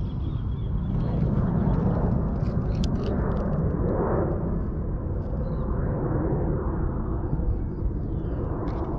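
Steady low outdoor rumble, with a few faint clicks near the middle and the end.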